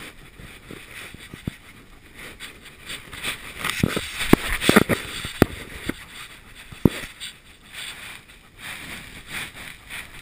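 German shepherd panting right at an action camera strapped to her, with irregular knocks and rustles from the mount as she moves, thickest a few seconds in.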